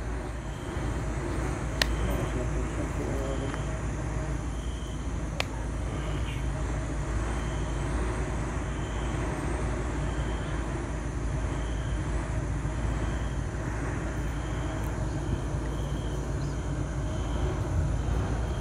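Steady outdoor night ambience: an even rushing noise over a low rumble, with a faint high chirp repeating about once a second and two sharp clicks early on.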